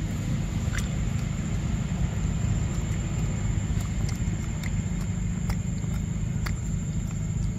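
A steady low rumble, with a few short sharp clicks scattered through it as a macaque bites and chews a ripe yellow fruit. A thin, steady high tone runs underneath.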